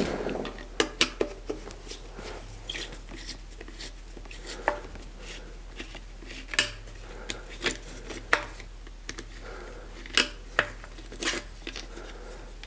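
Scattered, irregular metallic clicks and taps of a red-handled hand tool working the seat-post clamp bolt on a bicycle's seat tube, about a dozen of them.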